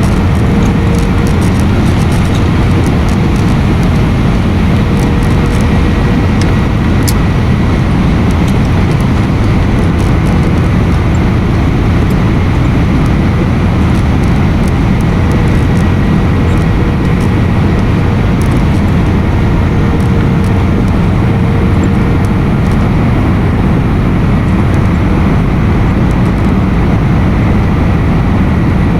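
Steady engine and airflow noise heard inside an airliner's cabin, with a faint steady hum and scattered small ticks.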